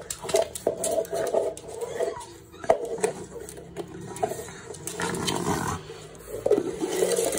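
Pug growling in play while it bites and tugs at a plastic cup, with sharp clicks scattered throughout.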